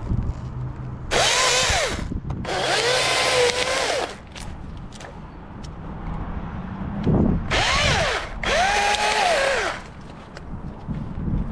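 Chainsaw cutting wood in four short bursts, two close together near the start and two more about halfway through. Each time the motor's pitch rises as it speeds up, holds while cutting and drops as it slows.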